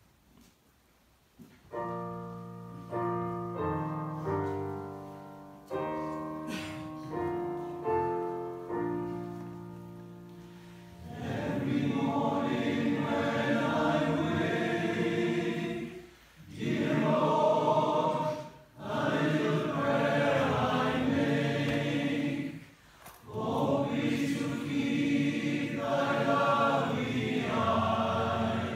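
A piano plays a short introduction of struck chords that ring and die away, then a male voice choir sings in harmony, in sustained phrases with short breaths between them.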